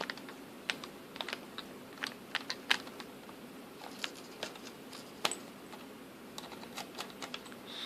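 A small screwdriver turning the screw in the plastic battery cover of a toy bubble gun, making irregular light clicks and ticks of metal and plastic.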